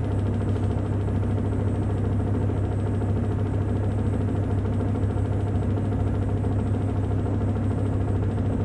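Panasonic NA-F70G5 top-loading washing machine on its spin cycle: motor and tub running with a steady low hum and even rushing noise. It is working properly on the replacement universal control board.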